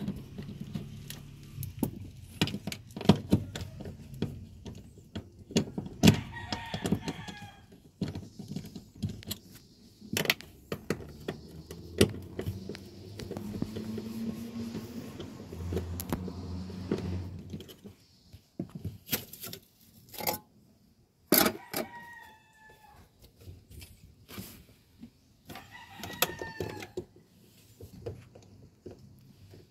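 A rooster crowing three times, each crow lasting about a second and a half. Between the crows come scattered sharp metallic clicks and knocks, like tools being handled. A low hum runs for a few seconds in the middle.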